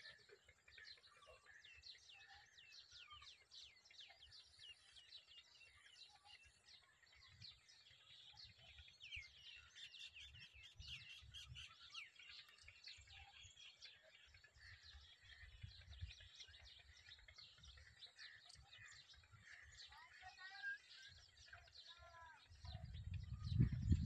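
Faint chorus of many birds chirping, dense short high notes. Near the end come a few lower, wavering calls and a low rumble on the microphone.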